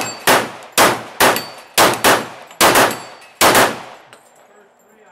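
Rapid handgun fire at steel falling-plate targets: about nine shots in under four seconds, with the metallic clang and ring of the steel plates as they are hit. The string stops about three and a half seconds in.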